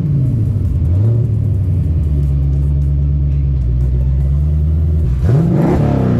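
Twin-turbo 347 pushrod V8 of a Fox-body Ford Mustang just after start-up, its revs falling from the start-up flare and settling to a steady idle. Near the end the throttle is blipped once, and the revs rise quickly and drop back.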